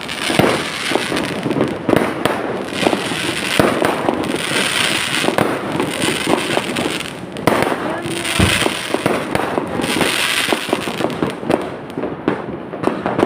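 Fireworks going off in a continuous barrage: many irregular bangs and pops overlapping, with patches of crackling.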